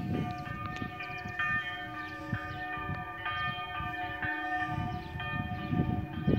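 The three church bells of a village church rung together in memory of COVID-19 victims: a 260 kg bell cast by the Dytrych family in 1983, a middle bell, and a bell of about 95 kg cast by Baltazar Herold in 1672. Their strikes overlap and ring on, over a low rumble.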